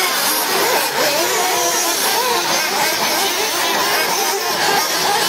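Several radio-controlled 2WD off-road buggies racing together, their motors whining with pitches that keep rising and falling as they accelerate and slow through the corners.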